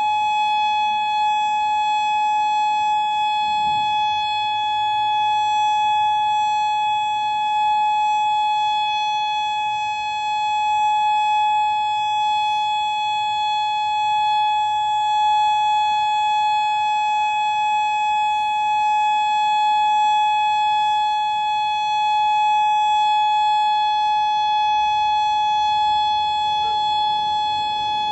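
Federal Signal Modulator 4016 electronic outdoor warning siren sounding a steady, unbroken tone during a siren test.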